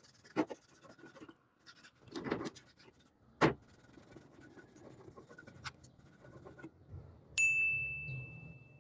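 Clicks and knocks from a Beretta 301 shotgun receiver being picked up and handled on a wooden workbench, with the sharpest click about three and a half seconds in. Near the end a sudden bright ding rings out and fades over about a second and a half.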